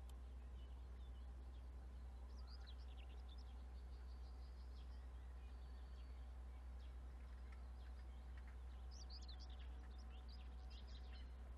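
Small birds chirping in quick bursts, a few seconds in and again near the end, over a faint steady low outdoor rumble.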